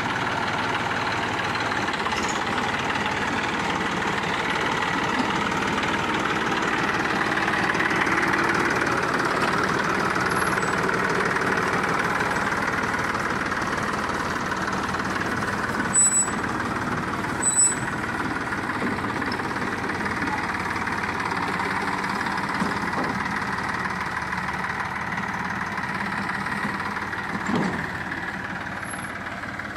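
Farm tractor's diesel engine running steadily as it pulls a trailer, swelling a little partway through and fading near the end as it moves off. Two short high-pitched chirps sound about halfway through.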